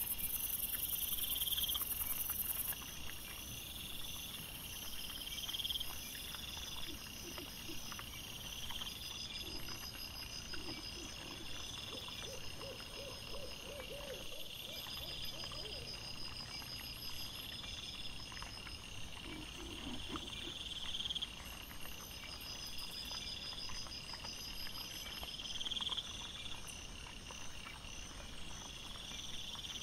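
Night insects, crickets and bush crickets, trilling in repeated pulsed bursts at several pitches, with a few short runs of soft, rapid low calls from an animal in the middle stretch.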